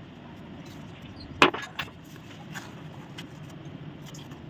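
Kitchenware clinking against a glass dessert bowl: one sharp clink about a second and a half in, then a few fainter ticks, over a steady low background hum.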